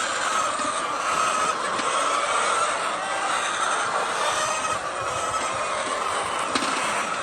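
A large flock of chickens clucking and calling all at once, a steady dense din of many overlapping voices.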